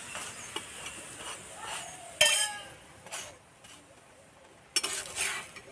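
Metal spatula clinking and scraping on an iron tawa while pressing a paratha frying in mustard oil: lighter taps, one sharp ringing clink about two seconds in, and a scrape near the end.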